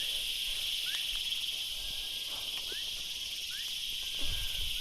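Insects chirring in a steady, high-pitched chorus, with short rising chirps repeating every second or so and a brief low rumble near the end.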